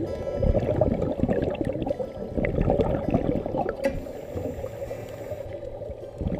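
Water sloshing and gurgling around an underwater camera as it moves through the water, a dense low rushing sound with small crackles that eases off somewhat in the second half.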